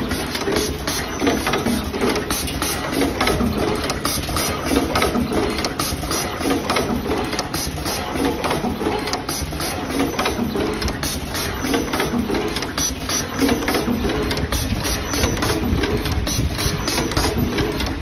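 Automatic flag-terminal wire crimping machine running: a continuous rapid clatter of clicks and knocks from its mechanisms, over a steady low hum.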